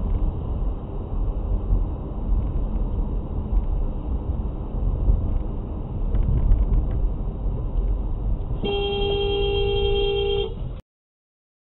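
Low road and engine rumble heard inside a moving car's cabin, then a car horn held steadily for about two seconds near the end.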